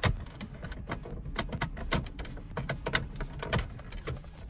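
Plastic dash trim around a BMW E90 3 Series CCC navigation unit clicking and creaking as it is pulled loose by hand from its side retaining clips. There is a sharp click at the start, then a scattered string of smaller clicks and knocks.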